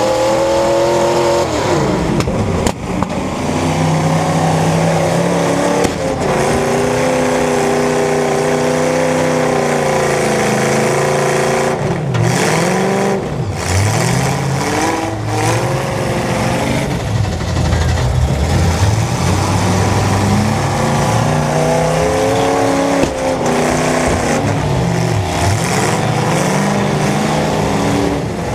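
Demolition derby cars' engines revving hard and falling back, more than one at a time, with a few sharp bangs of cars colliding.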